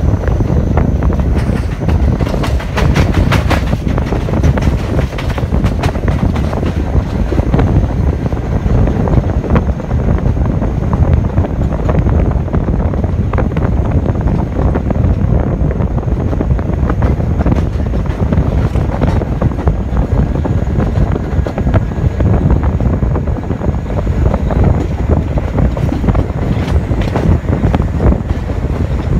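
NYC subway train running along the rails at speed, a steady rolling noise of wheels on track. There is a cluster of sharp clicks and knocks in the first few seconds as it crosses track switches, and more near the end as it runs into a station.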